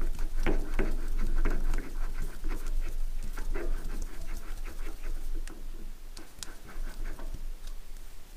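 An aluminium part being screwed by hand onto a freshly cut external thread on a lathe mandrel: metal threads rasping and clicking in short, uneven strokes as it is turned. The strokes are denser in the first few seconds and thin out later.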